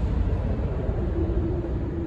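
New York City subway train approaching through the tunnel: a steady low rumble, with a faint steady tone coming in about a second in.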